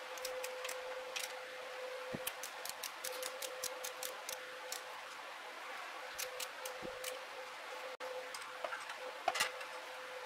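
Ratchet wrench clicking in quick runs as the manifold nuts on a Chevrolet 216 straight-six are run down, over a steady faint hum. A sharper knock comes near the end.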